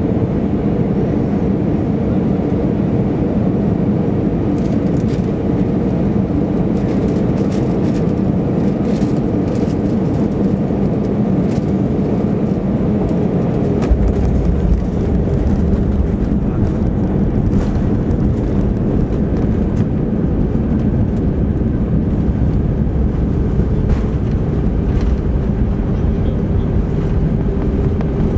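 Airbus A320 cabin noise on final approach: a steady rush of engines and airflow heard from inside the cabin. About halfway through, the main wheels touch down with a small bump, and a heavier low rumble of the tyres rolling on the runway follows.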